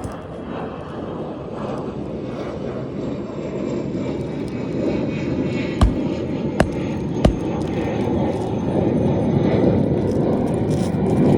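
Three sharp hammer blows, about 0.7 s apart, driving a roofing nail into a replacement asphalt shingle. They sit over a steady low rumble that grows slowly louder.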